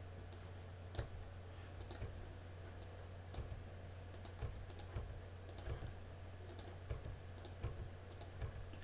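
Computer mouse and keyboard clicking, about a dozen short, sharp clicks at uneven intervals of roughly half a second to a second, over a steady low hum.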